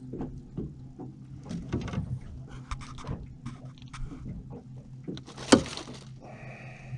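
Sounds of handling on a small fishing boat: scattered knocks and clatter against the boat over a steady low hum. One sharp, loud knock comes about five and a half seconds in.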